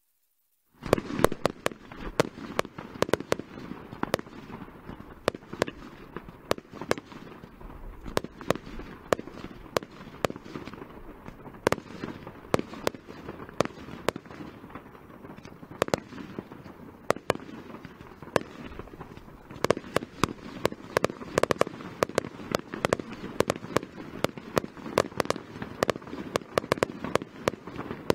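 Fireworks display: shells bursting in quick, irregular succession, several sharp bangs a second over a steady noisy background, starting abruptly about a second in.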